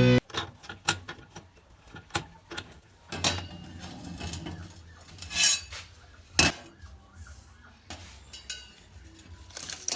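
Metal parts and tools being handled, with scattered clinks and knocks and a few sharper strikes, the sharpest about six and a half seconds in.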